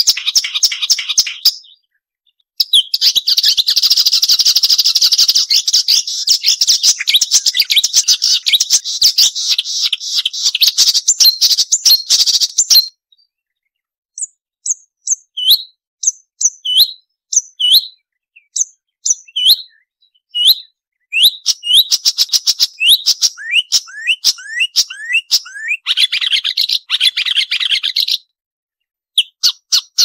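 Marsh warbler song: about ten seconds of fast, scratchy chattering after a short opening trill, then a pause, then a string of separate sharp, high, down-slurred notes. These build back into rapid varied chatter near the end.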